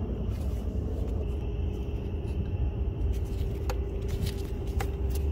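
Steady low outdoor rumble with a faint steady hum, and a few light clicks as the plastic valve-body selector rod is worked out by hand.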